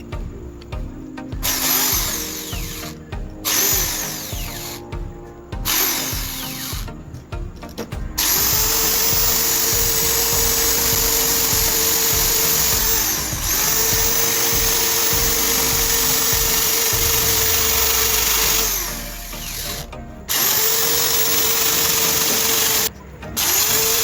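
Electric hand drill running in repeated bursts: several short trigger pulls, then long steady runs of several seconds each. Each run has a steady motor whine that spins up at the start and winds down when released.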